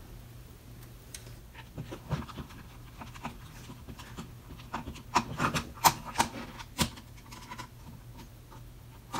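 Light hand-handling sounds while a cordless drill is being reassembled: a scattered run of small clicks, taps and rubs of a screwdriver and drill parts, thickest from about five to seven seconds in.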